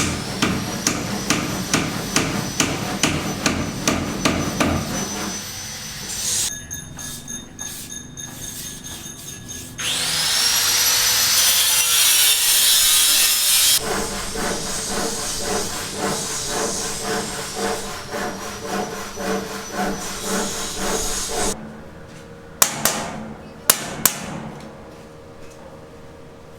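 Building-site work sounds: quick repeated hammer blows, then a power tool running loudly for a few seconds with a rising whine, then more rhythmic knocking and a few sharp knocks near the end.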